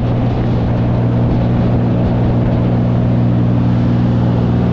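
Water taxi's engine running steadily under way, a loud, constant low drone.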